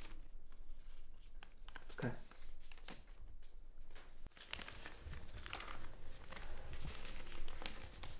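Paper rustling and crinkling as sheets are handled, with scattered soft clicks, more frequent in the second half.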